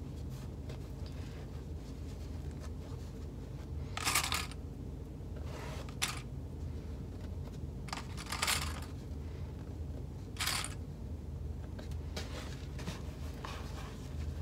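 Small plastic sewing clips rattling in short bursts, about six of them a couple of seconds apart, as clips are taken from a plastic tub and snapped onto fabric panel edges. A steady low hum runs underneath.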